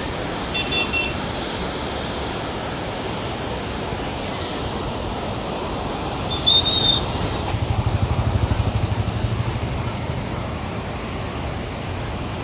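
Steady rushing noise, with two short high-pitched toots, one near the start and one about halfway through, then a motorcycle engine running close by for a couple of seconds with a pulsing low rumble.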